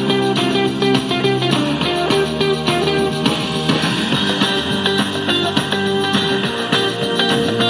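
Guitar-led music track played back through a small X6 Bluetooth speaker, clear in the mids and highs but with little deep bass.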